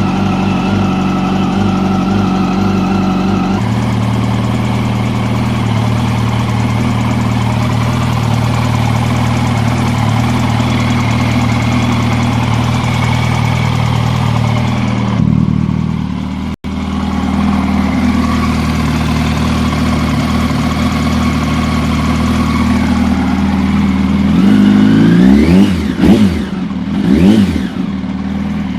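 2006 Yamaha YZF-R1's inline-four engine idling with a ticking noise from up around the cylinder head. Near the end the throttle is blipped twice, the revs rising and falling quickly each time.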